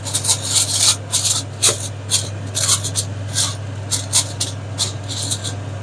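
Aluminium foil crinkling as it is pressed and crimped by hand around the rim of a pan, in quick irregular crackly rustles.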